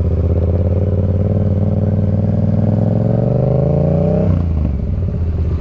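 Yamaha MT-07's parallel-twin engine, fitted with an aftermarket M4 exhaust, running under throttle as the bike rides. Its pitch climbs steadily for a couple of seconds, then drops sharply about four seconds in and settles lower.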